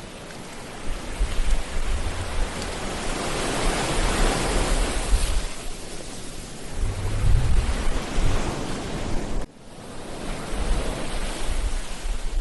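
Ocean waves breaking and washing up the beach, the surf swelling to its loudest about four to five seconds in, with wind rumbling on the microphone. The sound drops away suddenly for a moment about two thirds of the way through, then picks up again.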